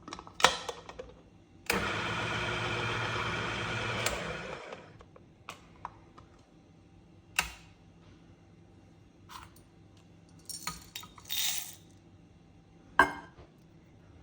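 Handling sounds while preparing a Niche Zero coffee grinder: a sharp click, then about two and a half seconds of a steady rushing rattle that tails off. After that come scattered clicks and taps, a short hiss, and one louder click near the end.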